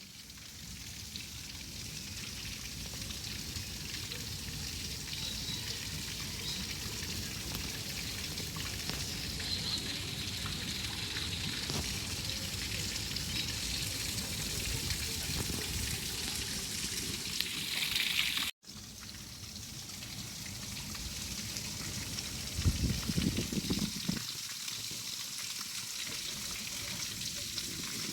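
Steady hiss of running or splashing water. It cuts off for an instant about two-thirds through, and there is a brief louder patch of low rumbling near the end.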